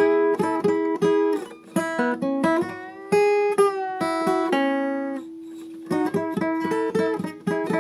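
Acoustic guitar strummed in a steady rhythm. Midway it breaks into a few sustained notes, some sliding in pitch, and a held chord left ringing. The strumming resumes near the end.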